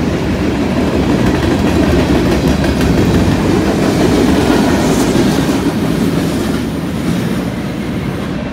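Freight cars of a long freight train rolling past close by: steel wheels rumbling and clattering on the rails, with a brief high wheel squeal about five seconds in. The noise eases off near the end as the last car goes by.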